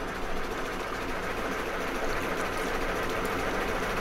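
Narrowboat's diesel engine running steadily while the boat cruises, over a steady hiss.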